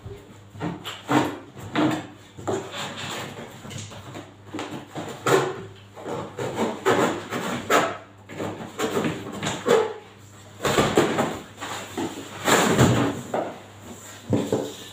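Cardboard shipping carton being cut open and pulled off a new chest freezer: irregular tearing, scraping and knocks of cardboard.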